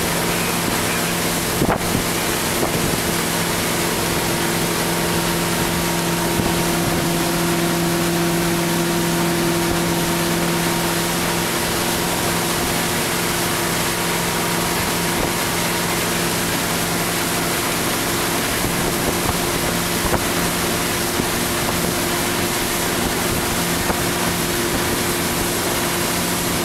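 Tow boat's engine running steadily at speed, a constant hum, under wind buffeting the microphone and the rushing hiss of water from the wake.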